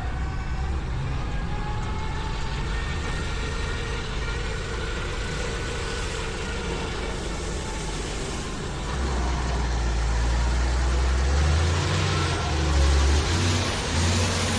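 Wind buffeting the microphone of a moving bicycle, with tyre noise from the gravel track; the low wind rumble grows louder about nine seconds in.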